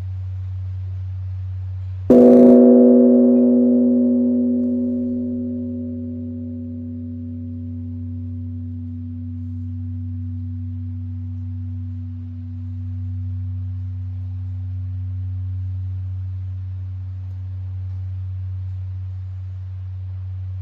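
Large bronze Korean Buddhist temple bell (beomjong), struck once with a wooden log about two seconds in. The strike rings out in several tones that slowly fade over a deep hum left from an earlier strike, which wavers slowly in loudness.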